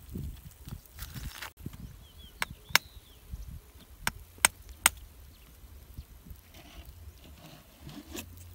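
Five sharp clicks, two close pairs and a single, from hard objects such as stones knocking together, over light rustling from handling on dry, stony ground.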